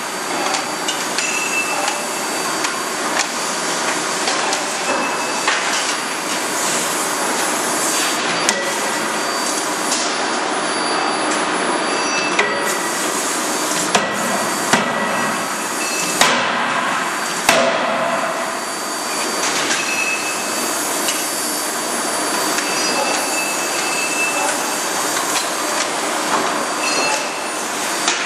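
Steady loud din of forging machinery, broken by a handful of sharp, irregularly spaced blows of a hydraulic die forging hammer striking red-hot steel connecting-rod blanks in the dies.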